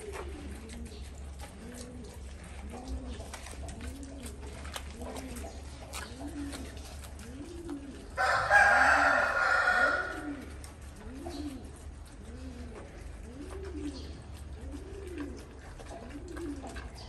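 Dove cooing over and over, each low coo rising and falling in pitch, about one a second, over a steady low hum. About eight seconds in, a much louder animal call lasts about two seconds.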